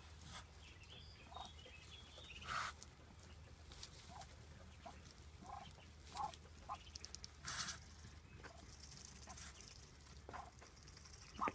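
Muscovy duck hen and her ducklings calling softly: scattered short calls and peeps, with a couple of louder brief noises about two and a half and seven and a half seconds in.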